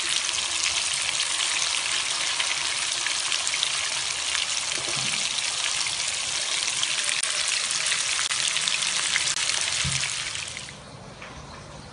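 Marinated fish pieces sizzling and crackling as they shallow-fry in hot oil in a pan, a dense steady spatter of fine pops. Near the end the sizzle turns much quieter.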